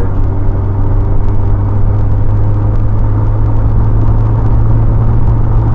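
Interior drive noise of a 2003 Honda Element: its four-cylinder engine running with tyre and road noise at a steady speed, a steady low rumble.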